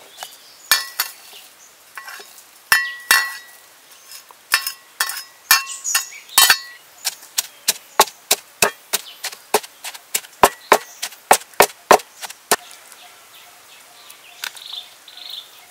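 A wooden pestle pounding curry paste in a deep wooden mortar: first scattered knocks with some short clinks as ingredients go in off a ceramic plate, then steady strokes about three a second, stopping about three-quarters of the way in.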